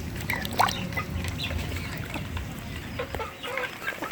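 Young ducklings peeping: many short, high calls, several at once, some rising in pitch. A low hum sits underneath and stops about three seconds in.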